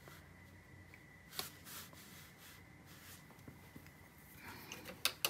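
Faint swishing of a watercolour brush on cold-press paper, with a few sharp clicks near the end.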